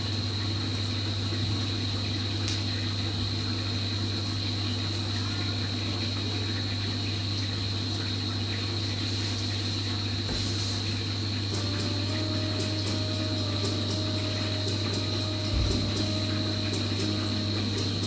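Saltwater aquarium's built-in rear filter running: a steady pump hum with water flowing through it. There is a brief low bump about three-quarters of the way through.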